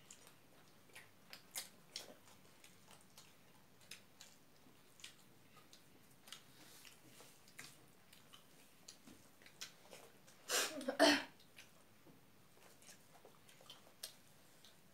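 Faint eating sounds: scattered mouth smacks, chewing and small clicks of fingers working rice on plates. About ten and a half seconds in, one short, loud throat-clearing cough.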